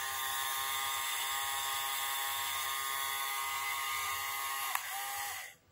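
LEGO L motor, switched on from its battery box, spinning with a steady high whine as it drives the worm-gear mechanism. Near the end there is a click, the whine drops in pitch and then cuts off.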